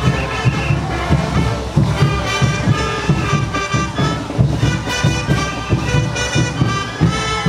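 Brass band playing caporales dance music: horns carry a melody over a steady drum beat.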